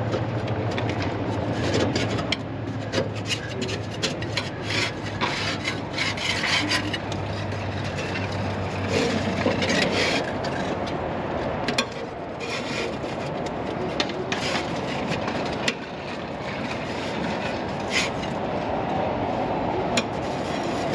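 Irregular scraping and rubbing strokes with sharp clicks and knocks, from hand work at a zero-turn mower's cutting deck and blades. A low hum runs under the first half and stops about halfway through.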